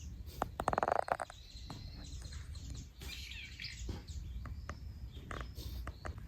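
Garden birds chirping and calling, with a loud, fast rattling call about half a second in and a cluster of high chirps about three seconds in, over a low steady rumble.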